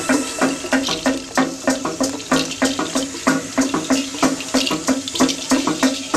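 Background music: a quickly repeated low note pulsing evenly, over rattling, shaker-like percussion.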